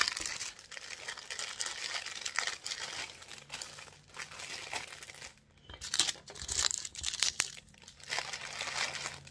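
Small plastic bags of diamond-painting drills crinkling and rustling as they are handled and pushed into a larger plastic bag, with a brief lull about halfway and louder crinkling just after.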